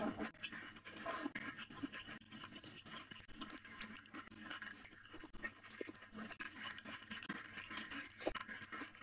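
Close-miked eating sounds: wet chewing and mouth smacks, with fingers squishing and mixing rice and curry on a plate. Irregular small clicks and squelches throughout.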